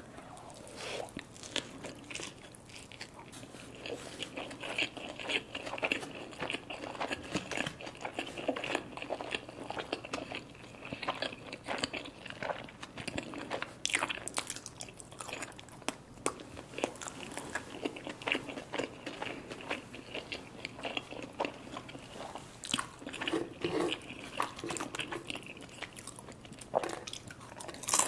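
Close-miked eating sounds: crunching and chewing of a crispy fried burrito coated in crushed chips, many small irregular crackles and mouth noises. A sharp crackle near the end.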